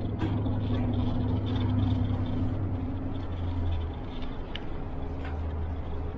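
Inside a city bus under way: the engine and drivetrain running with a steady low drone over road noise.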